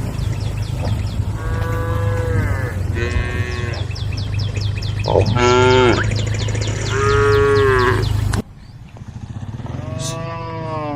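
Cattle mooing: about five long calls, some overlapping, with the loudest near the middle. Underneath runs a steady low hum that cuts off abruptly about eight seconds in.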